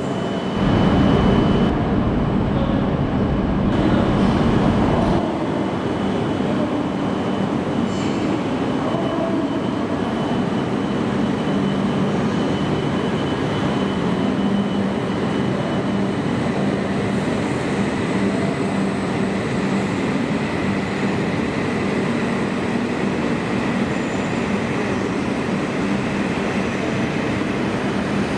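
A train running steadily, with a constant hum and a faint high tone. A heavy low rumble is louder for the first few seconds, then settles.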